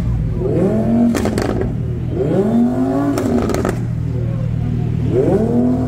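Lamborghini Huracán V10 idling and blipped three times, each rev rising and falling back. Sharp crackles come near the rev peaks.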